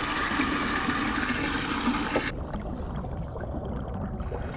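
Water from a hose pouring and splashing into a glass aquarium as it fills. About two seconds in, the sound turns duller and a little quieter.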